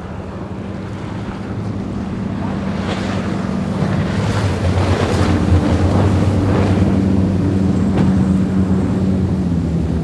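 Large high-speed powerboat's inboard engines running hard with a steady low drone, under the hiss and splash of the hull's spray. It grows louder over the first few seconds as the boat passes close, with wind on the microphone.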